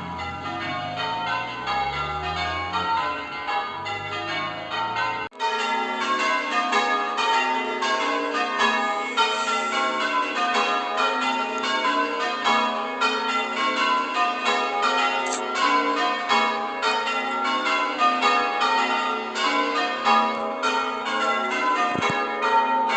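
Church bells being change-rung: a steady stream of overlapping bell strikes following one another in rows, with a sudden brief break about five seconds in.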